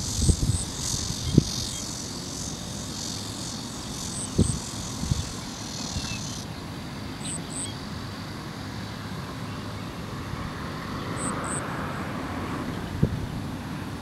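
Outdoor ambience: a steady low rumble, with a high buzzing that stops about halfway through. Faint, very high double chirps come four times, a few seconds apart, and a few low thumps stand out.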